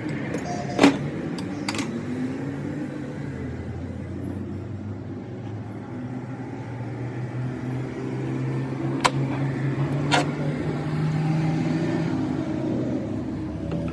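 A motor running steadily, its pitch sliding up and down in the first few seconds, with a few sharp metallic clicks.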